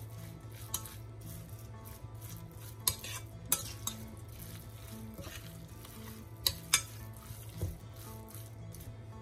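Metal spoon stirring a wet mixture of raw ground meat, rice and chopped vegetables in a ceramic bowl, scraping steadily with several sharp clinks of the spoon against the bowl, two close together a little past the middle. Faint background music plays underneath.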